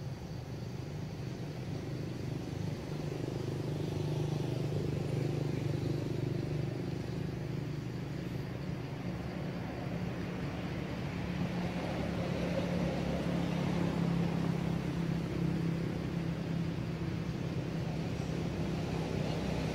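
Low, steady engine rumble of motor traffic, swelling and easing slowly twice.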